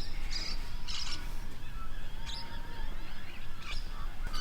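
Wild birds calling: several short, high chirps about a second apart, over a steady low rumble.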